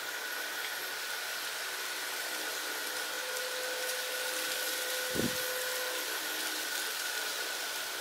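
Steady hiss of a propane burner heating a pot of scalding water, with a soft low thump about five seconds in.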